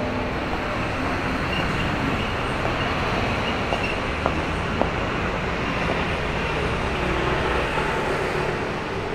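Steady city street traffic noise: vehicles passing on the road, with two faint clicks a little past halfway.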